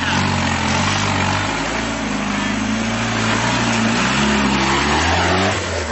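Off-road vehicle's engine revving under load, its pitch rising and falling several times over a loud, steady rush of noise, then dropping away near the end.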